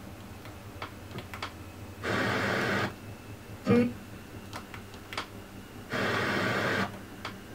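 Toyota 6176 (Matsushita) car stereo's FM tuner searching between stations: mostly muted with faint hiss and scattered clicks, broken twice by about a second of static hiss, with a short blip of a station in between.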